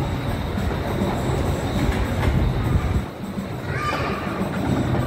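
Low rumbling and clatter of a turning carousel platform, which eases sharply about three seconds in, with voices faintly in the background.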